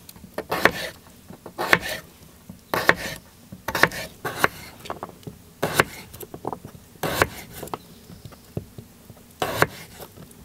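Small knife cutting raw potato into chunks over a wooden cutting board: a crisp cut every second or so, at an uneven pace.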